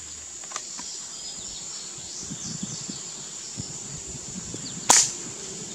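A single shot from a Hammerli 850 AirMagnum CO2 air rifle about five seconds in, fired with its compensator removed. A steady drone of insects runs underneath.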